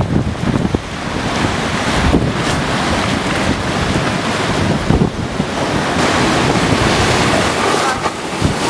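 Hurricane wind buffeting the microphone over heavy surf: a loud, unbroken rush of noise with gusty low thumps.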